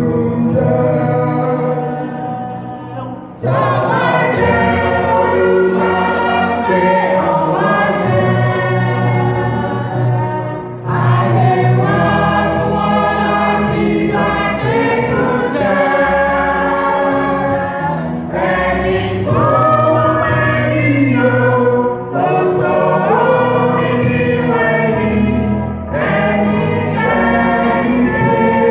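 Church choir of men and women singing together, in phrases a few seconds long with short breaks between.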